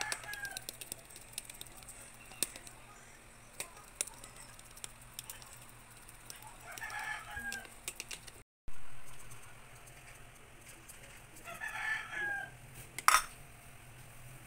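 A rooster crowing three times, several seconds apart, with scattered light clicks and a sharp knock near the end.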